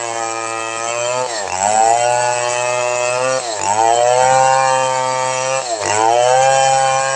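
Two-stroke chainsaw running at high revs while rip-cutting a log lengthwise. Its pitch drops sharply and climbs back three times, about every two seconds.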